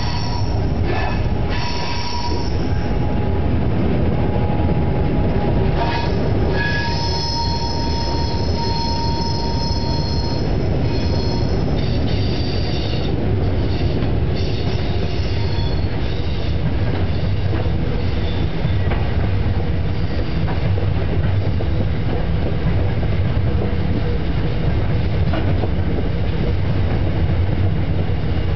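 Four diesel locomotives hauling a train of grain hoppers pass on a curve, with a heavy engine drone and rumbling wheels. High thin wheel squeal rings out over the first half as the wheels take the curve, then dies away as the hoppers roll past.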